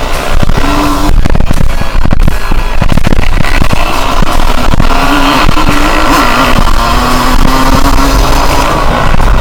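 Yamaha YZ125 two-stroke dirt bike engine running hard on an off-road ride, heard from an onboard camera with heavy wind buffeting and knocking from the rough ground; the engine note holds steady, then drops to a lower pitch about two-thirds of the way through.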